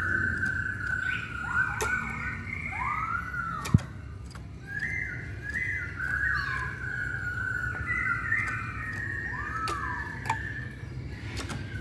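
Chinese hwamei (Hongkong poksay) singing a continuous run of loud, clear whistled phrases with slurred rising and falling notes. A few sharp clicks break in, one louder about four seconds in.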